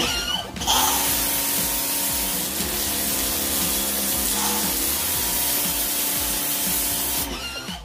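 McGregor 1400 W electric pressure washer firing its high-pressure jet onto concrete: a loud, steady spray hiss that starts about a second in and cuts off shortly before the end.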